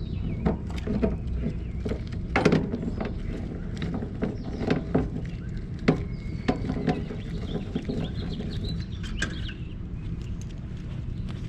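Scattered knocks and clicks of galvanized steel pipe and threaded fittings being handled and test-fitted together, over a steady low rumble.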